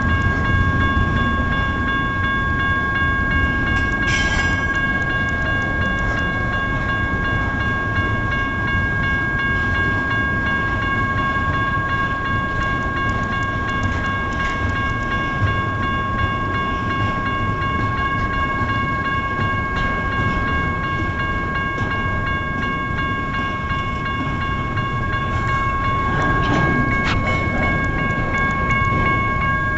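Rumble and wheel-on-rail noise of a double-stack container train rolling steadily through a grade crossing, with the General Signals type 1 electronic crossing bell ringing a steady tone over it. A brief clank comes about four seconds in.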